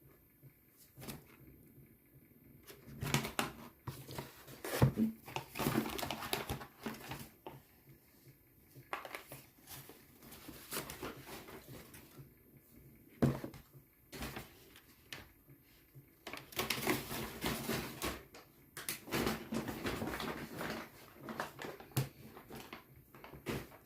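Packaging being handled and opened by hand: irregular rustling and crinkling with scattered sharp clicks and taps, broken by short quiet pauses.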